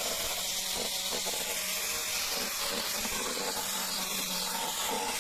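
Steady hissing noise with a faint low hum underneath, unchanging throughout.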